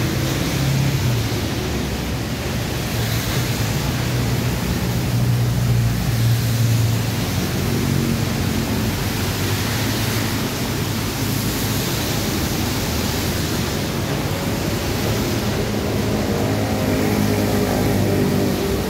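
Steady hiss of rain, with the low hum of road traffic passing.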